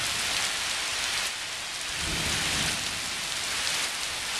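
Heavy rain pouring steadily during a thunderstorm, with a low rumble of thunder about two seconds in.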